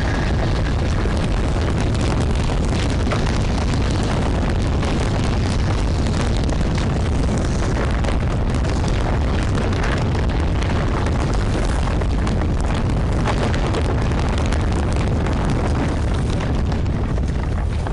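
A heavy stream of sand pouring from a suspended barrel onto a standing person, a continuous rushing rumble with scattered fine crackles through it.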